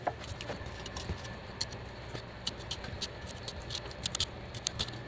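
Fillet knife slicing along a Spanish mackerel on a plastic cutting board: a run of small irregular ticks and crackles as the blade cuts through the fish, over a faint low hum.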